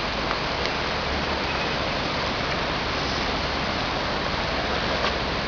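Steady rushing of a flooded river running high and fast, an even noise throughout.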